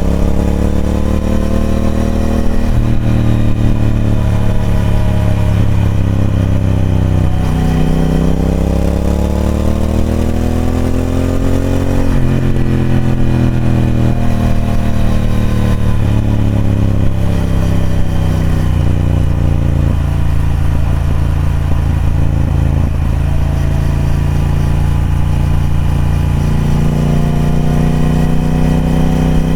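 Triumph Speed Twin 1200's parallel-twin engine through its stock exhaust, ridden on the road. The engine note climbs and drops back sharply a few times, as on gear changes, holds steadier for a while, and rises again near the end.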